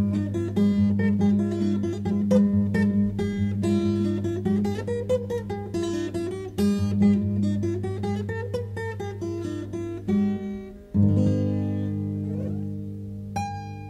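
Background music on acoustic guitar: plucked notes over a steady low bass note, then a chord about eleven seconds in that rings out and fades, with one last plucked note near the end.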